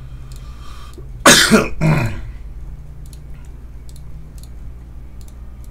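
A person coughs and clears their throat in three quick bursts, the first the loudest, a little over a second in. Faint computer clicks follow over a low, steady hum.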